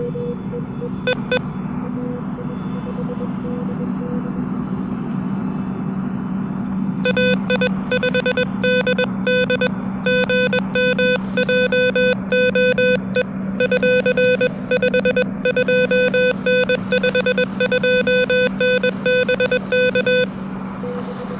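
Morse code (CW) tones near 500 Hz from an Elecraft KH1 transceiver, played through a small amplified external speaker. The first few seconds carry a fainter keyed signal. About a third of the way in, much louder, harsher keyed Morse starts at the same pitch and runs until about a second before the end, over a steady low hum.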